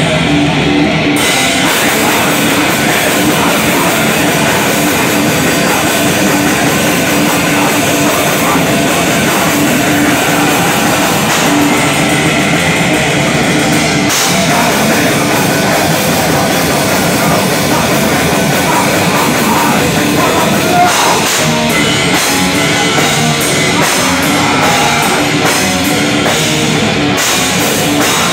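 Heavy metal band playing live and loud: distorted electric guitar over a drum kit, dense and unbroken.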